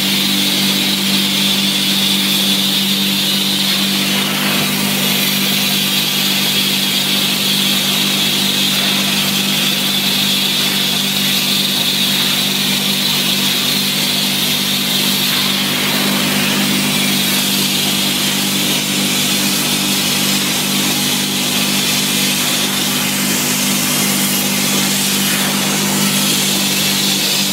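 Upholstery cleaning machine's suction motor running steadily, a constant hum with a high whine, drawing air through its hose and hand nozzle as it is worked over sofa fabric.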